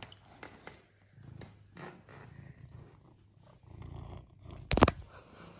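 A long-haired domestic cat purring, a low steady rumble. Near the end comes one loud, brief thump, the loudest sound.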